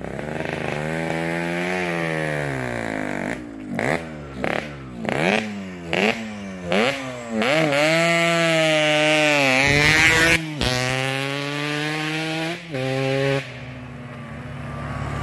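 Yamaha RX-King two-stroke single-cylinder motorcycle engine being revved hard: one long swell in pitch, then a quick run of short throttle bursts, then held high for a few seconds and cut off sharply about ten seconds in. It then runs steadier and falls away near the end.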